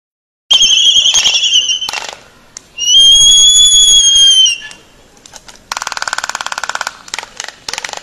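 Laysan albatross pair calling in courtship: two long whistled calls, the second held about a second and a half before sagging away, then a fast rattling bill-clatter lasting about a second, and a few sharp bill snaps near the end.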